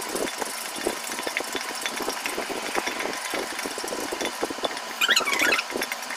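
Wooden churner (mathu) twirled fast between the palms in an aluminium pot, beating curd into lassi: a steady rapid clatter of wood knocking and rattling against the metal pot. A brief, louder higher-pitched sound comes about five seconds in.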